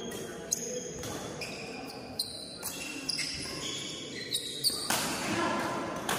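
Badminton rally: a handful of sharp racket strokes on the shuttlecock, mixed with short high-pitched squeaks of court shoes on the floor.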